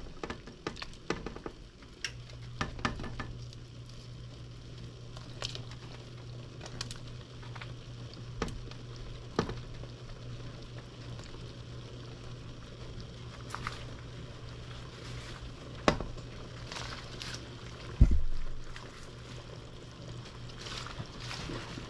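A pot of sour-soup broth simmering while handfuls of vegetables are dropped in, with scattered clicks and knocks and one loud thump about three quarters of the way through. A steady low hum runs underneath.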